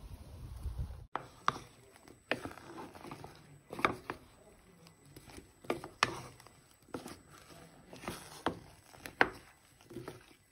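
A low rumble cuts off about a second in. Then a spatula stirs chunks of cinnamon-dusted apple in a metal pot, knocking and scraping against the pot about once a second.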